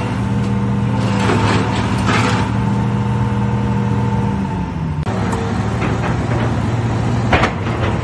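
Hitachi excavator's diesel engine running steadily while demolition debris crashes and clatters, with sharp crunches about one and a half and two seconds in and a louder bang near the end.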